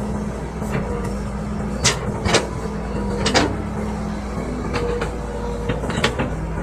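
Excavator engine running steadily, with several sharp metallic clanks, the loudest a few seconds in and again near the end.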